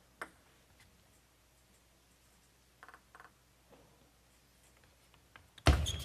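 Table tennis: a hush while the server readies, with a few faint ball taps. Near the end come a sudden loud crack of the serve and the start of a rally, with quick sharp clicks of the celluloid-type ball off bats and table.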